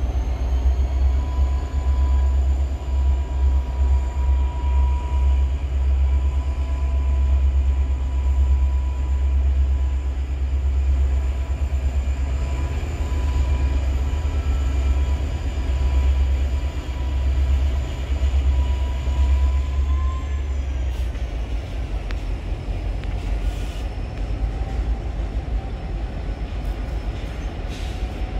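Norfolk Southern diesel-electric freight locomotives working under power, with a heavy low engine rumble and a steady high whine. About twenty seconds in, the rumble drops and the whine falls in pitch as the engines throttle down, and a few faint clicks follow.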